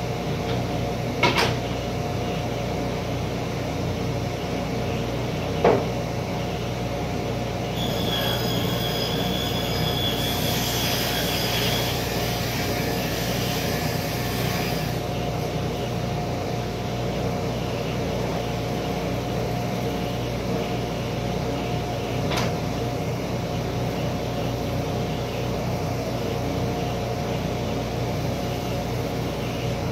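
Workshop machine running steadily with a hum. A high squealing whine sounds from about 8 to 15 seconds in, and there are a few sharp knocks.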